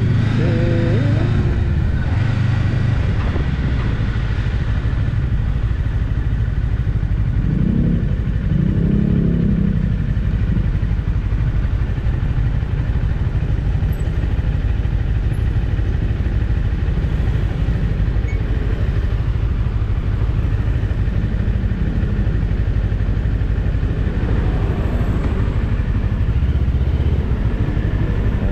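Rusi Cyclone 400S motorcycle on the move, its engine running steadily under a dense low rumble of wind and road noise.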